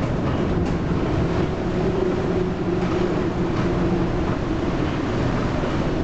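Steady rush of storm wind and sea spray heard from inside a ship's wheelhouse, with a few faint knocks of water on the windows over a low, steady machinery hum.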